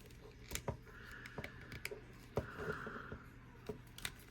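Faint handling of a plastic action figure: several small sharp clicks from its jointed arms being moved, with soft rubbing of hands on the plastic between them.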